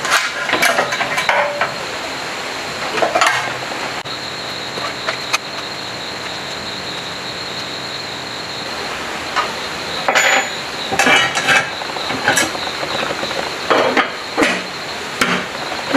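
Irregular clicks, clinks and knocks of a sheet-metal control box being set onto a generator housing and its wire terminals being fitted by hand. The knocks are heaviest near the start and in the last few seconds, over a steady hiss with a thin high tone.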